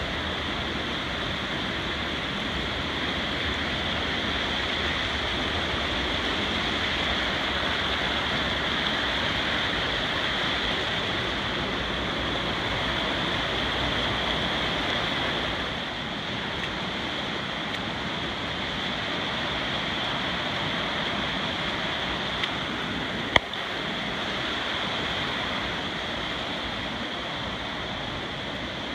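Rain-swollen, muddy creek rushing and cascading over rocks in a steady rush of water. A single sharp click sounds once about 23 seconds in.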